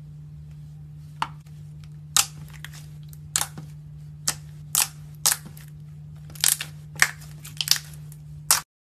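Clear purple glitter slime being stretched and pressed by hand, giving about a dozen sharp, irregular clicks and pops as trapped air breaks through it, over a steady low hum. The sound cuts off suddenly near the end.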